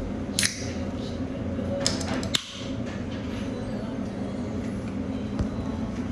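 Steady low indoor hum with a few short sharp clicks, one about half a second in and a small cluster around two seconds in.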